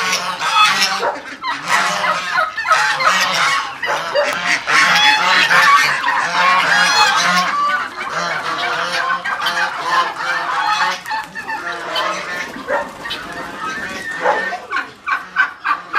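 A flock of domestic waterfowl honking, with many overlapping calls in a continuous chorus.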